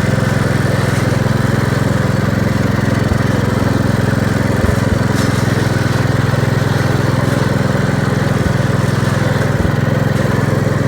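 Kohler K321 single-cylinder engine on a 1969 Gravely 432 tractor running steadily at a constant speed after its rebuild.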